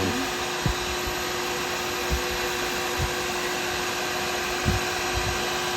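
Wood lathe running with a steady motor hum while a light cut is taken on a pen blank, with a few soft low knocks scattered through.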